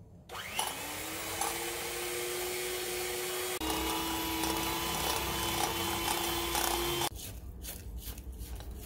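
Electric hand mixer switched on, spinning up with a rising whine, then running steadily as its beaters churn thick cookie dough of creamed butter and sugar in a bowl. It stops about seven seconds in, and soft scraping of a silicone spatula against the bowl follows.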